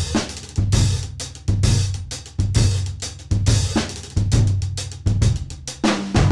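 Acoustic drum kit played with sticks: a fast run of strokes on snare and toms, with a deep drum hit landing evenly about once a second.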